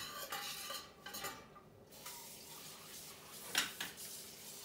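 A utensil scraping and clinking in a large stainless steel stock pot as chopped onion is stirred into melted bacon fat, with a sharp clink about three and a half seconds in.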